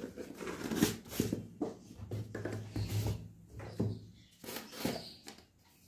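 Irregular rustling and light knocks of kitchen things being handled, several separate short sounds.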